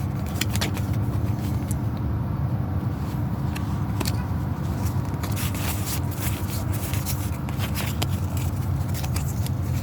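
Trading-card booster pack being handled: the foil wrapper crinkling and the cards sliding and scraping, many small irregular clicks and crackles over a steady low hum.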